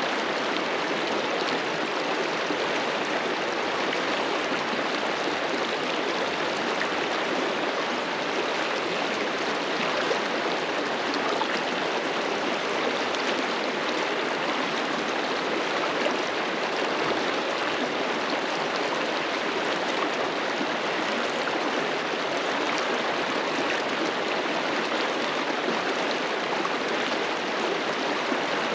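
River water rushing and flowing over rocks: a steady, even roar of running water.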